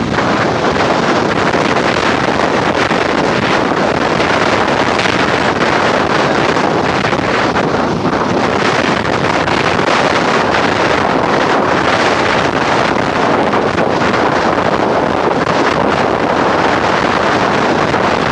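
Strong hurricane wind buffeting the microphone steadily, with heavy surf washing up the beach beneath it.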